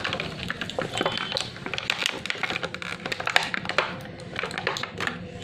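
Rapid, irregular clicks, taps and light rattles of plastic toy packaging being handled and pried open.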